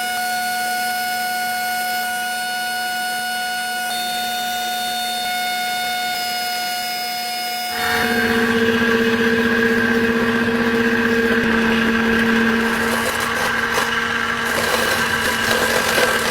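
Small electric motor of a power tool running steadily at a constant pitch. About eight seconds in it steps up to a louder, different tone, as if under load or at a higher speed.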